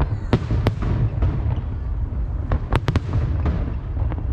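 Aerial fireworks shells bursting: a string of sharp cracks at irregular intervals, with a quick cluster a little under three seconds in, over a steady low rumble.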